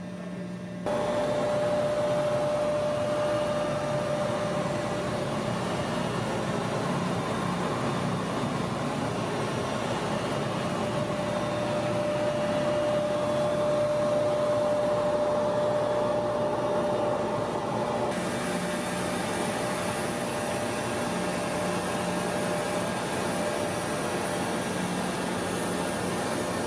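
Steady machinery noise of a ship's steam engine room, with its boiler and turbine plant running and a steady whine through it. The noise cuts in abruptly about a second in and turns brighter and hissier about two-thirds of the way through.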